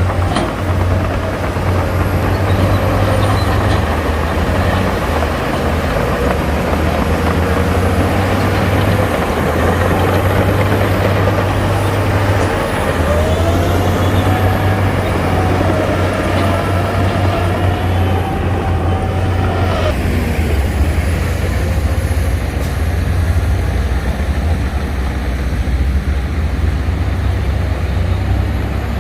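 Shantui DH17C2 bulldozer's diesel engine running steadily under working load while pushing soil. A wavering whine sits over the low engine drone through the middle and cuts off about two-thirds of the way in.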